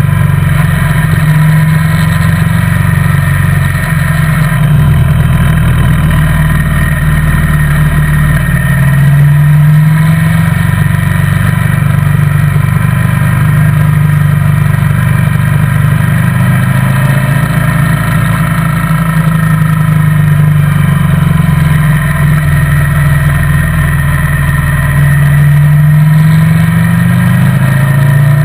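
Motorcycle engine running steadily under way, heard close from the bike itself, its pitch rising and falling several times with the throttle.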